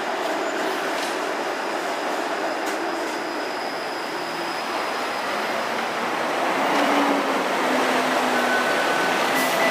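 A TTC Flexity Outlook low-floor streetcar pulling in beside the stop and slowing to a halt: steel wheels rolling on the rails with the drive's hum. It gets louder about two-thirds of the way through as the car draws alongside, and a faint whine from the drive and brakes comes in near the end.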